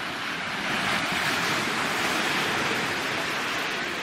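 Small waves breaking and washing up over sand at the water's edge: a steady hiss that swells about a second in and slowly eases off.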